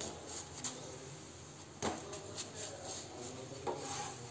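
Faint clicks and scrapes of a metal spatula pressing a paratha against a hot iron tawa, with one sharper knock about two seconds in.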